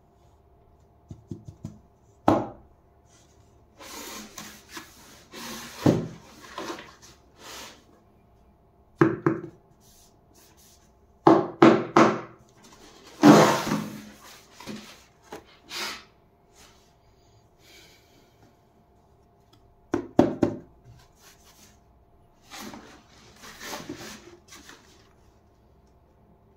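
A cardboard shoebox handled in cotton-gloved hands: irregular rubs and scrapes of glove on cardboard, with sharper knocks as the box is turned over and bumped on a wooden table.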